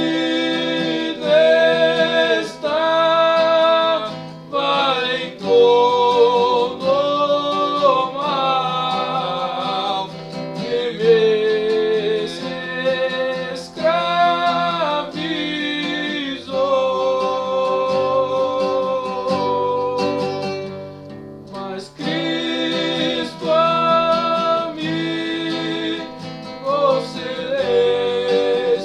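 Hymn sung in Portuguese with acoustic guitar accompaniment, the voices holding long notes over the strummed chords. There is a short break between phrases a little past two-thirds of the way in.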